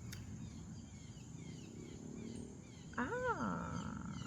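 A cat meows once about three seconds in: a short call that rises and then falls in pitch. Crickets chirp steadily in the background.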